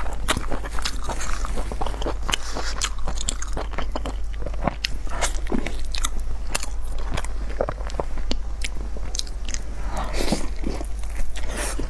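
Close-miked eating: a person biting and chewing food, with many sharp, wet mouth clicks throughout. A steady low hum runs underneath.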